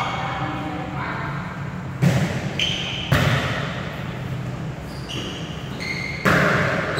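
Volleyball being struck by players' hands during a rally: three sharp smacks about two, three and six seconds in, each echoing in a large gym hall.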